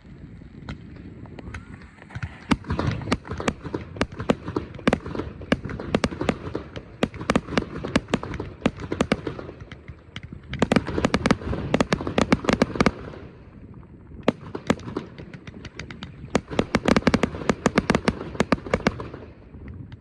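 Aerial fireworks display: rapid, dense volleys of shells bursting and crackling, in two heavy barrages with a short lull between.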